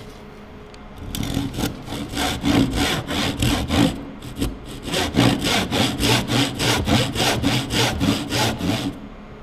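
Backsaw cutting by hand across timber, making the relief cut in the middle of a housing (trench) before the waste is chiselled out. Steady rasping strokes, about three a second, start about a second in, pause briefly near the middle, and stop shortly before the end.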